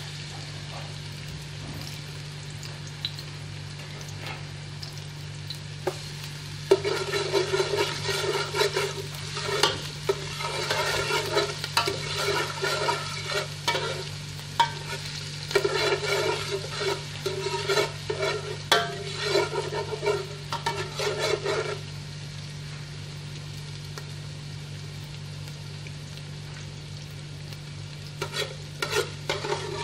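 Chopped garlic and ginger sizzling in hot oil in a large metal pot, stirred and scraped with a spatula in a busy stretch from about seven seconds to about twenty-two seconds and again near the end. A steady low hum runs underneath.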